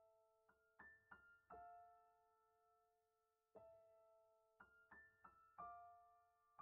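Faint background piano music: a slow run of soft single notes, each left ringing, with a longer held pause about halfway through.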